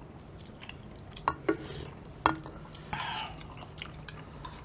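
Chopsticks clinking against a stainless steel serving tray and a ceramic bowl as noodles are lifted out of the broth: three sharp clinks with a short ring, then a brief wet swish about three seconds in.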